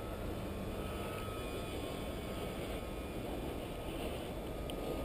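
Steady wind rumble on the microphone, a low rushing noise with no distinct events.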